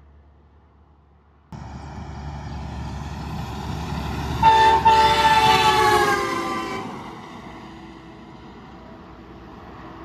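Semi truck's air-powered train horn sounding a loud multi-note chord as the truck passes, with a brief break, the chord dropping in pitch as it goes by. Engine and tyre noise build before the horn and fade away after it.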